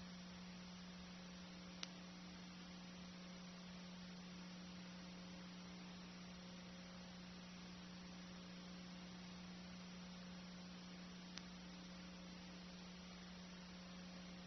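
Near silence: a steady low electrical hum with faint hiss, and two faint clicks, one about two seconds in and one about eleven seconds in.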